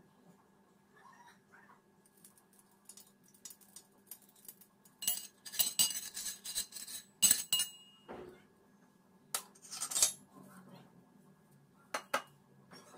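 A steel spoon clinks and scrapes inside a metal murukku press as the press is greased with oil. About five seconds in there is a dense run of clinks, followed later by a few single sharp metallic clinks.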